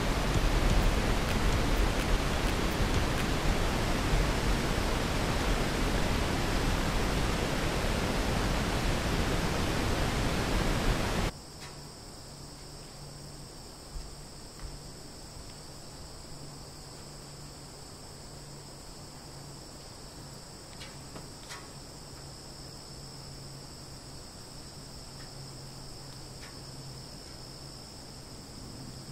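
Wind rushing over the microphone, loud and steady, cuts off abruptly about eleven seconds in. A quiet, steady chirring of crickets follows, with a faint low hum and a few light clicks.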